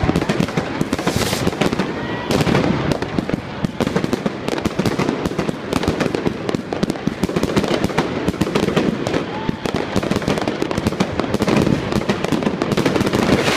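Many fireworks and firecrackers going off at once: a dense, unbroken run of bangs and pops with no pauses.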